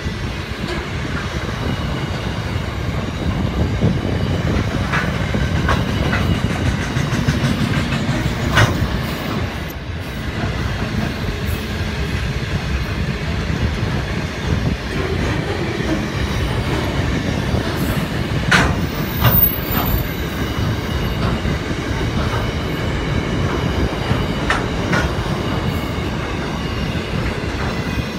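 Long freight train of container and open wagons rolling past: a steady rumble of wheels on rail, with a few brief sharp noises from the wheels, notably about a third of the way in and twice in quick succession a little past the middle.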